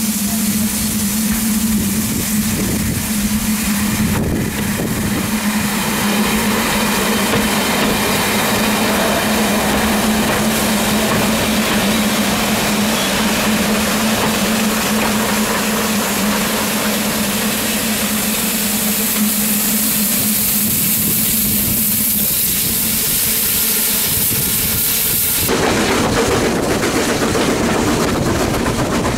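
Class 101 diesel multiple unit passing close by, its underfloor diesel engines giving a steady hum over a rushing noise of wheels and rails. About 25 seconds in it cuts to the noise of riding in a train carriage, wheels running on the rails.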